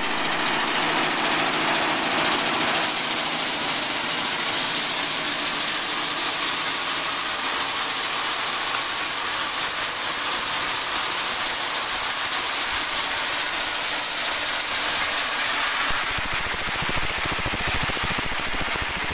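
Vibrating sieve machine running: a steady, dense rattle and hiss of dark granules shaking across its metal mesh screen. A deeper rattle comes in about three seconds before the end.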